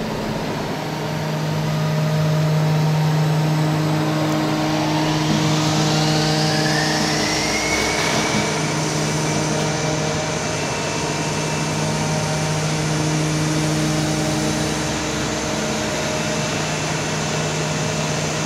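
TOS WHQ 13 CNC horizontal boring mill running: a steady low hum, with a whine that starts rising in pitch about four seconds in, climbs for about four seconds, then holds at a steady pitch.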